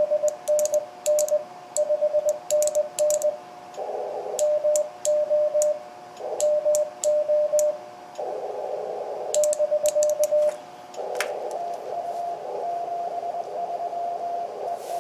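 Icom IC-7300 receiving Morse code on 20 m through a narrow CW filter: a tone near 600 Hz keyed in dots and dashes, with band hiss swelling in the gaps between characters and a second, slightly higher-pitched CW signal coming in near the end. Scattered sharp clicks sound over it.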